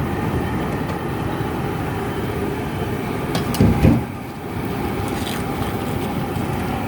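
Steady roar of a propane boil burner firing under a large seafood-boil pot. About three and a half seconds in there is a brief louder low thud with a few clicks.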